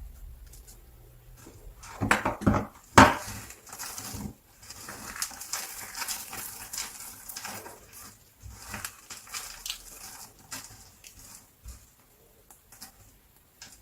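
Knife cutting through a bar of soap into strips, a crisp crunching and crumbling. A few loud cutting strokes come about two to three seconds in, then steady crackling, then scattered small ticks.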